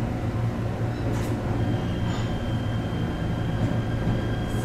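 Cabin sound of an ET127 series electric train moving: a steady low hum and rumble, a short click about a second in, and a thin steady high tone that comes in partway through.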